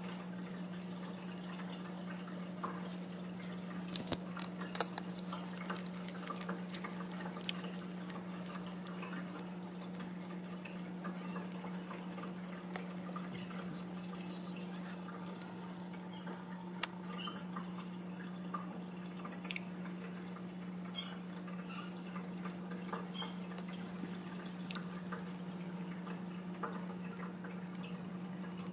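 Newborn Ragdoll kittens suckling at their mother: small wet clicks and smacks scattered irregularly over a steady low hum.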